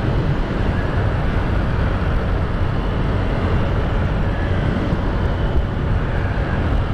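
Motorcycle riding steadily along the road: steady engine and road noise, with wind rushing over the microphone.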